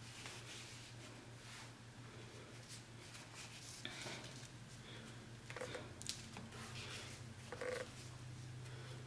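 Quiet room tone with a steady low hum and a few soft, scattered taps and clicks of handling.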